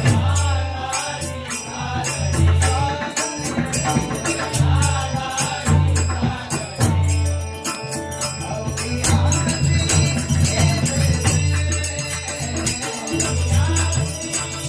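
Marathi devotional bhajan: voices chanting a dindi gajar to rapid, continuous clashing of taal hand cymbals, over a deep low accompaniment that swells and fades every second or two.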